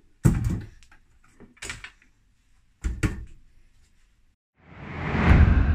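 Clunks and knocks of a vintage battery charger's metal case being handled on a workbench: a loud clunk just after the start, a few lighter knocks, and another clunk about three seconds in. Then a whoosh swells up near the end and starts to fade.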